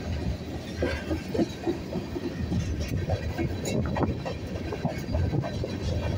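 Freight train of tank cars rolling past: a steady low rumble of steel wheels on rail, with irregular clicks and clacks.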